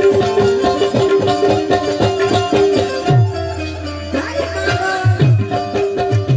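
Instrumental Gujarati folk music: quick hand-drum strokes over a steady held melody note. The drumming stops about three seconds in, leaving a long low note and some sliding melody notes, then comes back about five seconds in.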